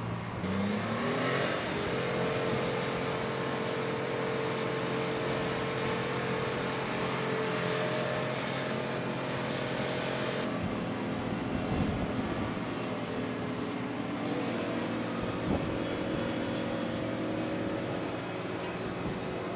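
Engine and machinery noise on an aircraft carrier's flight deck. An engine winds up in pitch over the first couple of seconds, then runs steadily. About ten seconds in, the sound changes abruptly to a different steady mix of engine tones.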